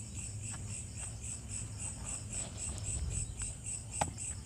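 Crickets chirping in a steady high pulse, about five chirps a second, with one short click about four seconds in as the plug leads are handled.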